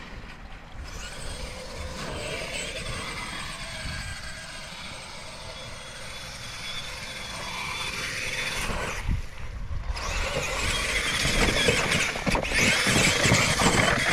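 Brushless Traxxas Summit RC truck driving over wet ground, its motor whining and tyres churning, louder and rougher in the last few seconds.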